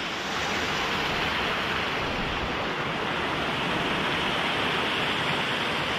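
Mountain stream rushing over rocks, a steady rush of water.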